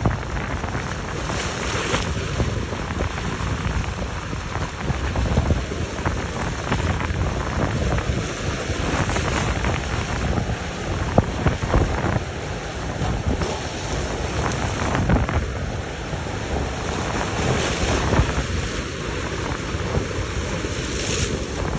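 Strong wind buffeting the microphone in gusts, over the low rumble of boat engines and rushing water.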